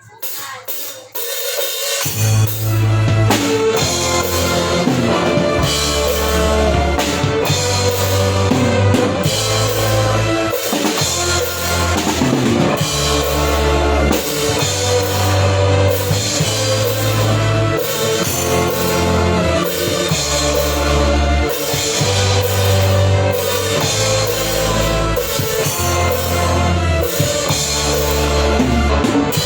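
Live band playing a song with a drum kit (bass drum, snare, cymbals) and strong low bass notes, coming in loudly about two seconds in: a sound check run-through.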